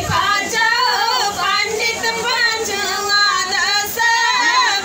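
Women singing a sohar, a North Indian folk song, into a handheld microphone, with long held and bending sung notes.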